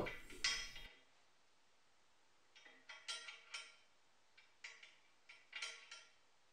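A few faint clicks and scrapes of steel carriage bolts, ground down to fit as T-bolts, being slid and seated in the slot of an aluminium Kreg T-track extrusion.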